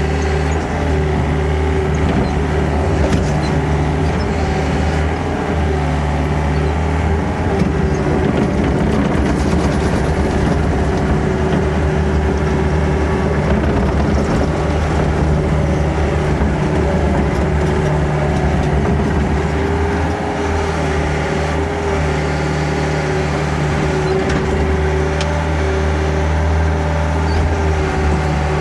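Diesel engine of a heavy earthmoving machine running steadily at working speed, with small shifts in pitch as it works.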